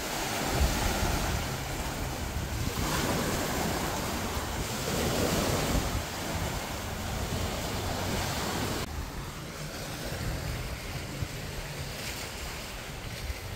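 Steady rushing outdoor noise of wind on the microphone with the wash of sea surf, swelling and easing every couple of seconds. About nine seconds in, the hiss suddenly turns duller.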